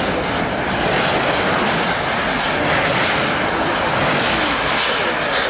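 Ice-racing cars driving through a snow-covered corner, a loud, continuous motor sound whose pitch rises and falls as they pass.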